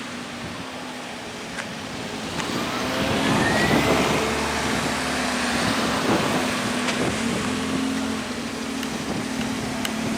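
Diesel railcar (KiHa 48) passing over a level crossing, its engine running with a steady hum while wheel and rail noise swells about two to four seconds in and stays loud.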